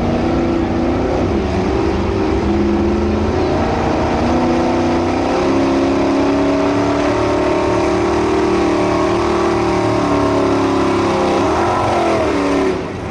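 A 1970s Ford F-series pickup's engine at full throttle, pulling a weight-transfer sled. The engine note stays loud, its pitch stepping up and down a few times through the pull, then cuts off sharply near the end as the truck comes to a stop.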